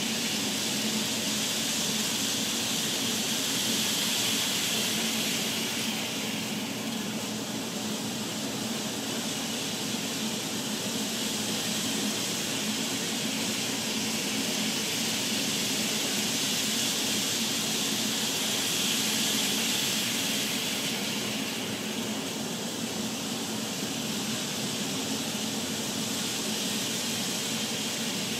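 DC-powered N scale model trains running on the track: a steady motor hum with a rushing hiss of wheels on rail, swelling and easing a little as the trains pass closer to and farther from the microphone.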